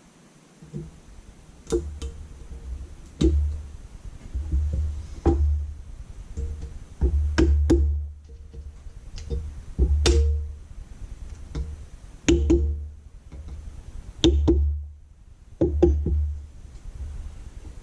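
Irregular metal knocks and clicks, some with a dull thud and a short ring, from working a snap ring into its groove on a steel upper control arm's ball joint.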